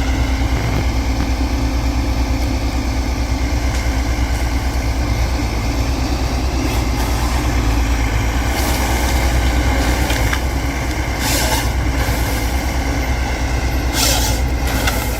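Heavy forestry machine's diesel engine running steadily, with a few short hisses near the middle and end.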